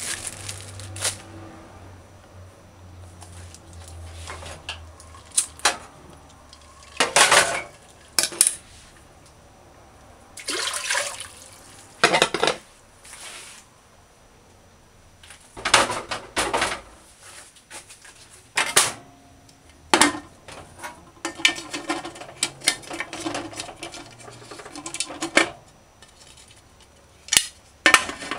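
Cooking handling sounds at an aluminium pressure cooker: irregular clanks and knocks of pot and metal, mixed with short rustling bursts, and a cluster of sharp clicks near the end as the lid is fitted and turned shut.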